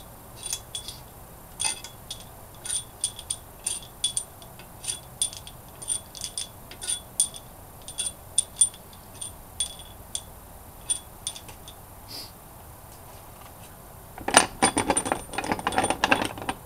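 Loose steel cylinder head bolts clinking against one another as they are handled, a sharp ringing clink every half second or so. About fourteen seconds in comes a louder, rattling clatter lasting about two seconds.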